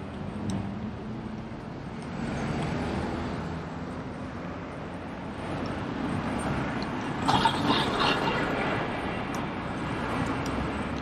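City street traffic: vehicles passing on the road with a low engine rumble that swells and fades, and a brief louder, higher burst of sound about seven seconds in.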